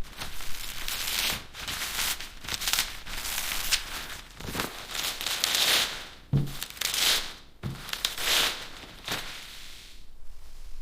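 Packaging being torn open and crinkled by hand in a run of rasping, ripping bursts, with a few sharp clicks between them.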